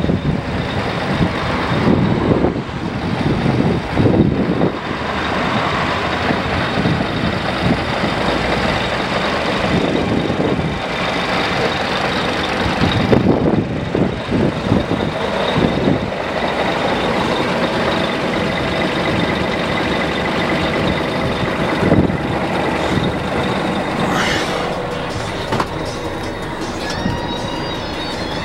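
Scania R420 truck's inline-six diesel engine idling steadily. A few sharp knocks come near the end.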